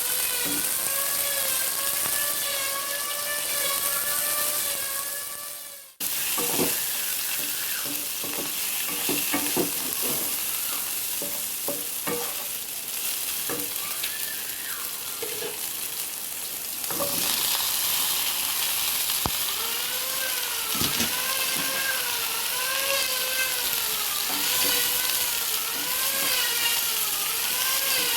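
Tofu and cabbage sizzling in a frying pan as they are stir-fried, with short clicks of a utensil against the pan. A wavering whine sounds over it for much of the time. The sound fades out and cuts back in about six seconds in.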